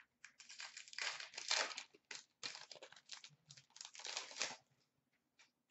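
Trading card pack wrapper being crinkled and torn open by hand: irregular rustling bursts for about four seconds, stopping near the end.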